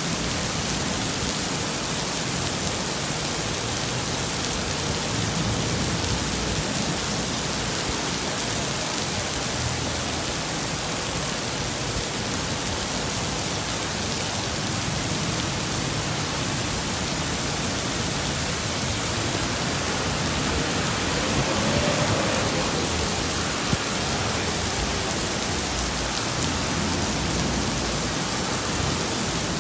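Heavy tropical downpour hissing steadily on the road and pavement, with a brief swell about two-thirds of the way through.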